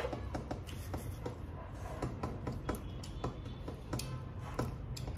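A person chewing a mouthful of food: irregular wet clicks and smacks from the mouth, over a low steady hum.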